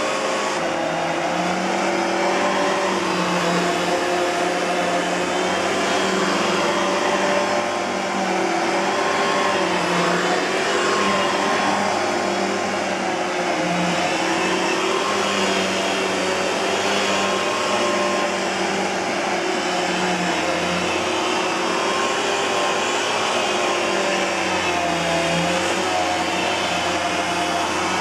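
Kenmore Progressive canister vacuum cleaner running, its SIP Cinderson blower motor giving a steady rush of air with a whine that wavers slightly in pitch.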